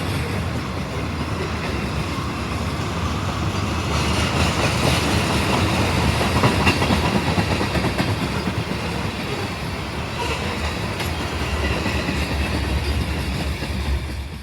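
A train rolling past, with the steady noise of its wheels running on the rails.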